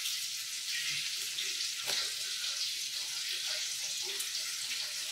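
Bacon sizzling in a frying pan: a steady, high hiss, with one faint click about two seconds in.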